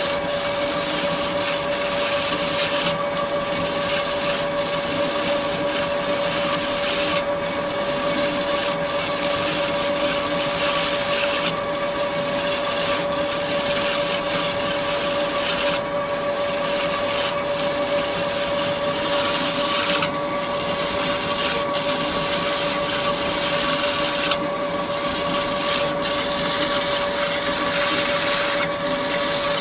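KASTO HBA 420 AU automatic horizontal metal-cutting band saw running: a steady whine over a hiss, with the hiss dipping briefly about every four seconds.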